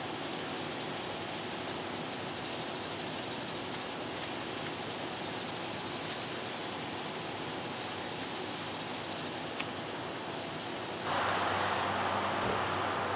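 Self-propelled modular transporter's diesel power pack running steadily, a continuous drone with a faint hum. About eleven seconds in, a louder, hissier wash of noise comes in.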